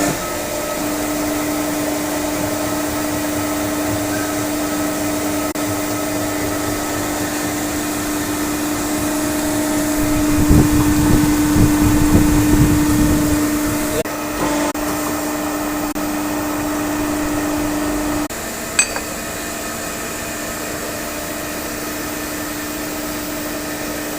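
Electric welding machine humming steadily, with a rougher, louder stretch in the middle; the hum cuts off suddenly about eighteen seconds in and a single click follows.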